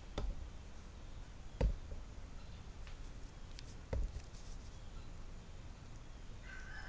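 Three light knocks or clicks from hands handling tools and wire, over quiet room tone.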